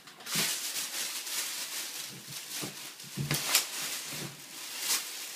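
Thin plastic shopping bags rustling and crinkling as a child's hands rummage through them, with a few sharper crackles.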